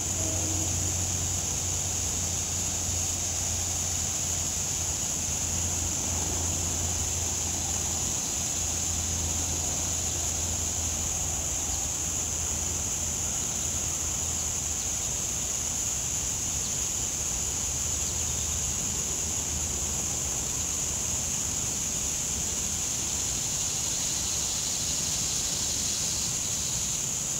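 Steady outdoor background noise at a swamp pond: a constant high hiss with a low rumble beneath it that eases off about halfway through. No distinct calls or splashes stand out.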